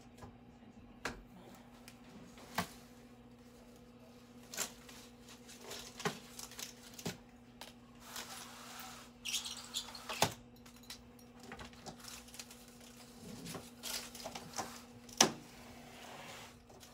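Scattered light clicks and knocks over a steady low electrical hum, the sharpest knock near the end, with a short hiss about eight to ten seconds in.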